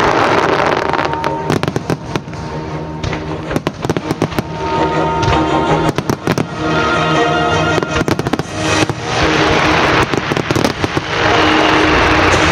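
Star mine fireworks going off in rapid succession, many sharp bursts with music playing underneath. Near the end the bursts give way to a dense crackling wash.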